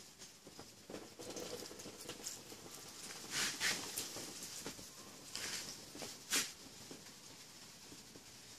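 Water poured from a plastic bottle pattering and splashing onto a freshly waxed car panel as it beads and runs off, with louder splashes about three and a half and six seconds in.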